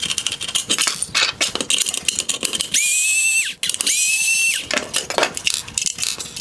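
Screws being backed out of a headlight's LED projector bracket: two short, high, steady whines that rise at the start and drop away at the end, among clicks and rattles of plastic and metal parts being handled.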